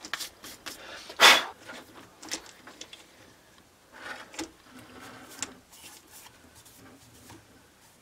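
Metal clicks, knocks and rubbing as a dial indicator on a jointed magnetic-base arm is positioned and clamped. The loudest sound is a sharp clack about a second in.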